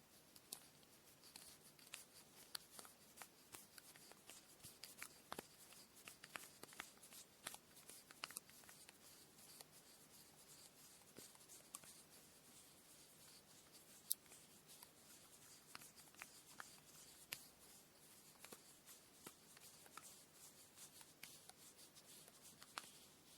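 Faint rustling of cotton thread being handled for kumihimo braiding, with many scattered light clicks and taps and one sharper tick about 14 seconds in.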